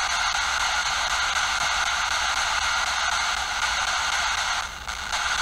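P-SB7 spirit box scanning radio giving a steady hiss of white-noise static. The static dips briefly near the end.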